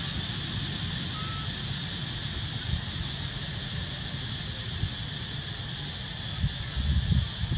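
Steady outdoor background hiss, with low rumbling gusts of wind on the microphone that swell near the end. A faint short whistle comes about a second in.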